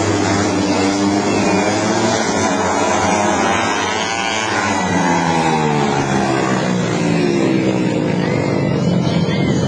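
Several junior speedway motorcycles racing on a dirt track: their single-cylinder engines rev hard, and the overlapping engine notes fall and rise as the bikes slide through the turns and power out again.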